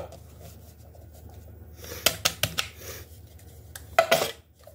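A metal tube cake pan being handled while flour is worked into it: a click at the start, then a few short knocks and clicks of the pan about two seconds in and again near the end.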